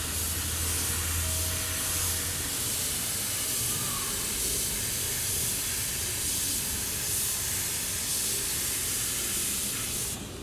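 Paint spray gun hissing steadily as it sprays primer at low pressure, cutting off abruptly near the end.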